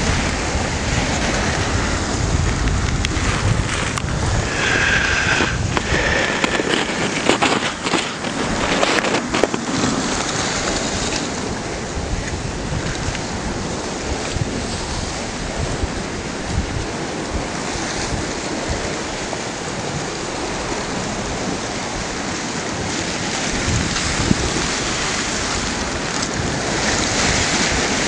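Drifting slush and pancake ice floes on the Vistula grinding and rubbing against each other as they flow: a continuous hissing rustle, with brief high squeaks about five seconds in and scattered clicks and crackles a few seconds later. Wind buffets the microphone during the first few seconds.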